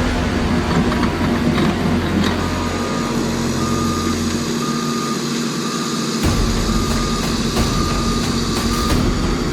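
Heavy machinery engine running with a backup alarm beeping at an even pace, about one beep a second, starting a couple of seconds in. The deep engine rumble drops away for about a second and a half in the middle, then returns.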